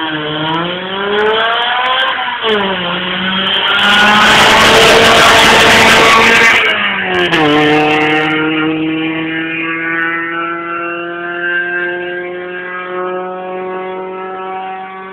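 Hill-climb race car engine accelerating hard, its pitch rising with a brief drop at a gear change. The car passes loudly for a few seconds, then its pitch falls and settles into a steady, held engine note.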